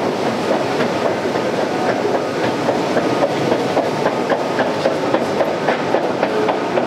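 Metro escalator running: a steady rumble of the moving steps with dense, irregular clicking and clattering throughout.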